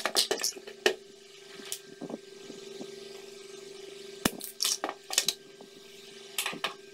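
Clicks and knocks from the UPS inverter's circuit board and soldering tools being handled, in three clusters, over a steady low hum.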